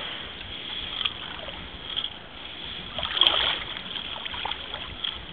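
Water lapping and splashing irregularly, with a slightly louder splash a little over three seconds in.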